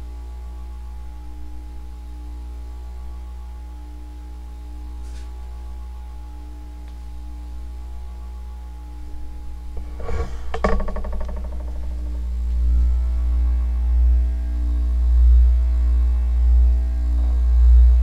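Evergo "Banana Fan" ceiling fan running, its motor humming steadily; it is a noisy fan that hums a lot. About ten seconds in there is a brief cluster of knocks, and after that a low rumble swells and fades about once a second.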